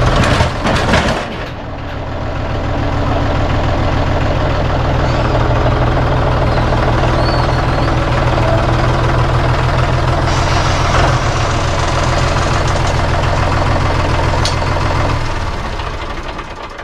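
Engine of the machine setting a big log onto a sawmill bench, running steadily, with some clattering in the first second or so. The engine sound drops away about fifteen seconds in.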